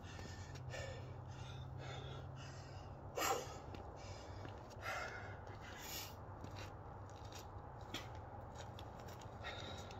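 A person breathing hard from exercise in cold air: short, irregular noisy breaths and movement sounds, the strongest about three seconds in, over a steady low hum.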